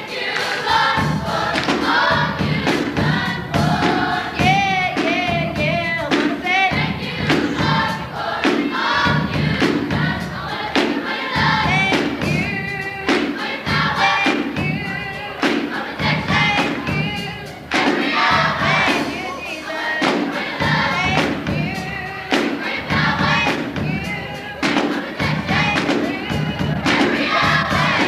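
A choir singing a gospel song over a steady beat.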